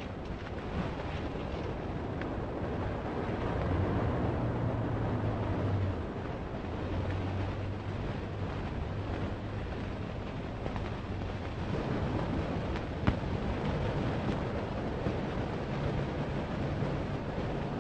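Steady hiss and rumble of an old newsreel soundtrack, with no voice, and a sharp click about thirteen seconds in.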